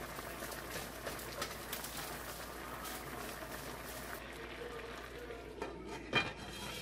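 Fried rice sizzling as it is stirred with a spatula in a frying pan beside a boiling stew, the sizzle dropping off after about four seconds. About six seconds in, a glass lid clanks once onto the wok.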